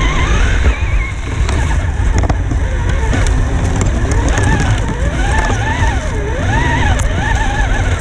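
Onboard sound of a radio-controlled rock crawler: its electric motor and gears whine, the pitch rising and falling as the throttle is worked, over a steady low rumble from the chassis on rough ground, with scattered clicks and knocks.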